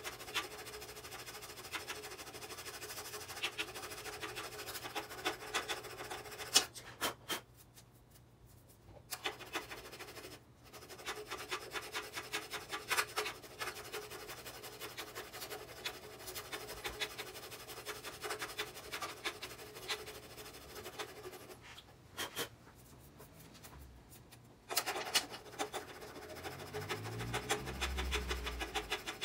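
Hand file rasping back and forth over the soldered patch on a stainless-steel Supertrapp muffler, smoothing down the solder that plugs its holes. The strokes are steady, with two short pauses.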